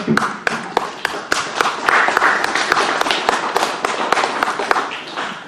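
Audience applauding: a dense patter of many hands clapping that swells and then dies away near the end.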